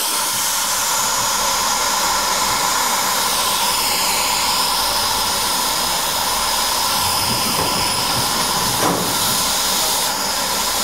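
Steady hiss of steam escaping from the Mount Lyell No. 3 Abt rack steam locomotive, with a brief knock about nine seconds in.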